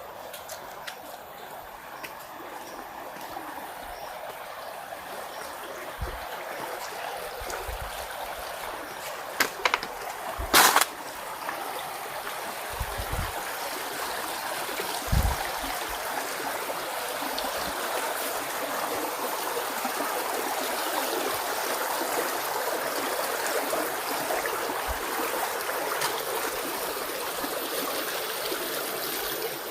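Rushing stream water, a steady hiss that grows gradually louder. About a third of the way in, a few sharp clicks or knocks stand out above it, with scattered low thumps around them.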